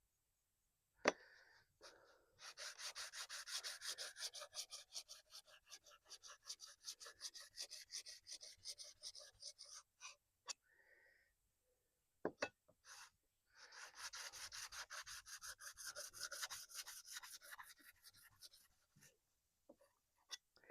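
Hand sanding with dry sandpaper: rapid back-and-forth scratching strokes in two long runs, about seven and five seconds, with a short pause and a couple of knocks between them.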